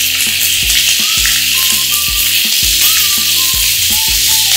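A meat-and-onion burger patty frying in hot oil in a pan, sizzling steadily and spitting: water from the onion in the patty is making the oil spatter. A light backing track with a regular beat plays underneath.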